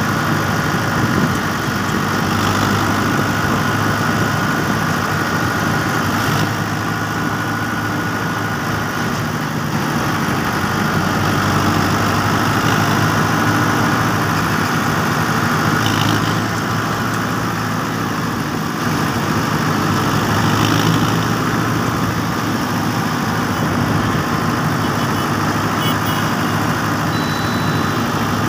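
Mahindra Arjun 555 DI tractor's four-cylinder diesel engine running steadily while the tractor is driven along the road, heard from the driver's seat right beside the upright exhaust.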